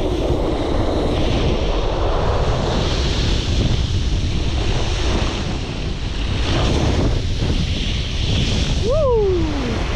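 Wind buffeting the microphone over a steady rush of water on a wakeboard cable-park lake. Near the end a single short call falls steeply in pitch.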